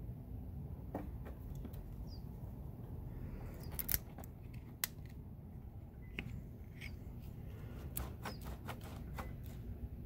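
Scattered sharp metal clicks and taps from a broken, corroded car battery cable clamp being worked by hand on its terminal post, the loudest about four seconds in and a quick run of them near the end. Under them is a steady low rumble, with a few short high chirps.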